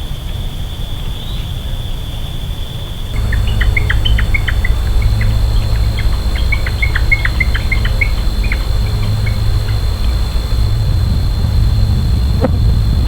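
A bird giving a rapid series of short chirps from about three seconds in until about nine seconds, over a steady low rumble and a constant high thin tone.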